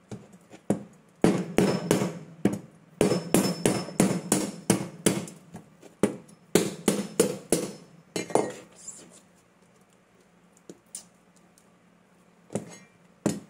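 A knife striking a coconut's hard shell again and again to crack it open, sharp knocks about two to three a second. They stop about eight seconds in, and two or three more knocks come near the end as the shell splits along a seam.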